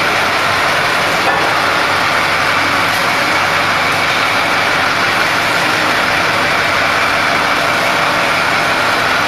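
Steady, loud running of factory machinery: a continuous mechanical din with a faint high whine on top, unchanging throughout.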